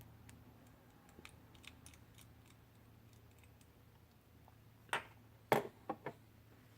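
Small metal parts of a folding knife being handled during disassembly: a few faint ticks, then four sharp clicks and taps in quick succession about five seconds in.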